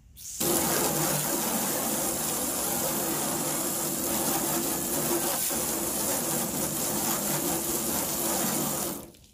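Pressure washer spraying a jet of water onto a truck's rusty sheet-metal door, rinsing off the soapy scrub: a steady hiss of spray with a faint steady hum beneath. It switches on about half a second in and cuts off suddenly near the end.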